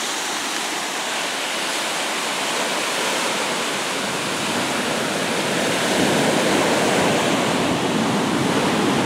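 Ocean surf breaking and washing up a sandy beach: a steady rush of foaming water that grows a little louder after about six seconds.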